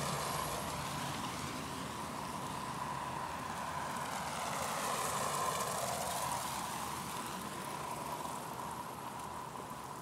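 Vehicle traffic on a cold, snow-packed city street: tyre and engine noise swells as a vehicle approaches, peaks about five to six seconds in, then fades. A steady high hum runs underneath.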